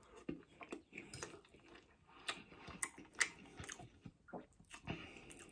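Close-miked chewing of a mouthful of takeaway noodles: quiet, wet mouth clicks and smacks coming irregularly, with no steady rhythm.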